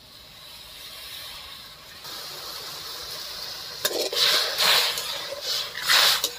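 Turmeric-and-salt water heating in an aluminium kadai, a hiss that slowly grows louder. About four seconds in, a metal spatula stirs the steaming water in a run of loud hissing, splashing strokes, about two a second.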